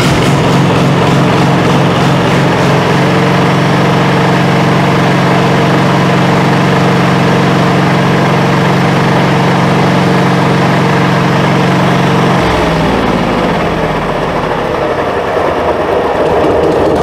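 Generac RV generator's engine running loud and steady, then about twelve seconds in its pitch drops and it runs on lower. It is being tested with its breakers switched on, and it makes no power.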